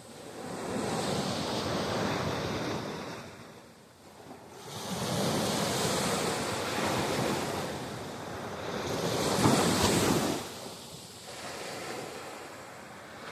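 Ocean waves breaking and washing onto a beach in slow surges a few seconds apart, the loudest about ten seconds in.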